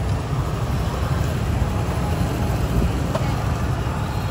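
Street traffic noise from motorbikes: a steady low rumble with no distinct engine note.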